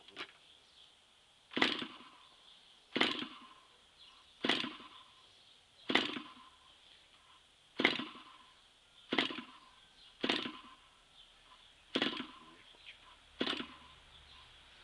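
Propeller of a Raduga-10 model aircraft engine being flicked over by hand, nine sharp slaps about one and a half seconds apart. The engine does not catch: there is no running sound between the flicks.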